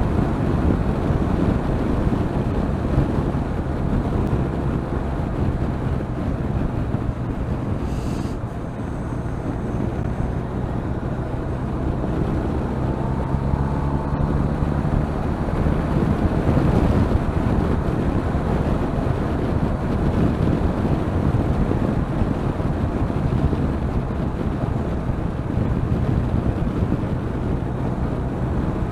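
Motorcycle engine running at speed on the open road, under heavy wind rush on the microphone; the engine note shifts in pitch a few times. The wind is loud because the bike's windscreen is lowered.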